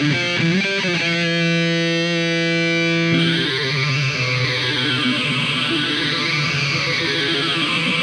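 Background rock music led by distorted electric guitar. A long held note gives way, about three seconds in, to a repeating sweeping sound that rises and falls.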